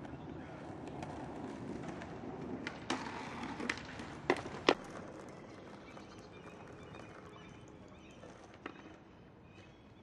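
Outdoor street ambience with a handful of sharp skateboard clacks, the loudest two close together a little before halfway; the background murmur then slowly fades.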